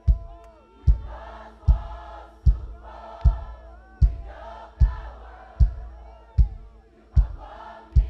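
Live gospel music: a choir of voices singing over a steady heavy beat, about one stroke every 0.8 seconds.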